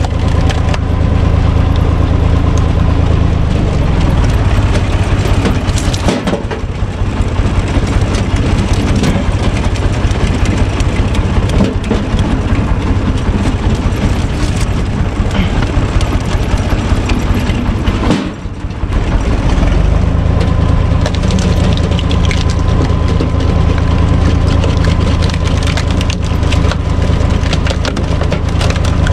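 UTB Universal 445 tractor's diesel engine running steadily as it drives a screw-cone log splitter, with wood cracking and splintering as logs are forced onto the turning cone. The engine hum thins out from about four seconds in while a log is being split and comes back strong near twenty seconds.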